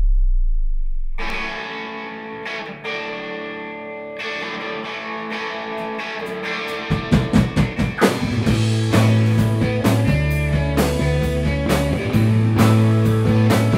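Rock band's song intro: an electric guitar plays alone from about a second in, then the drum kit and bass come in about seven seconds in. A low steady tone fades out in the first second.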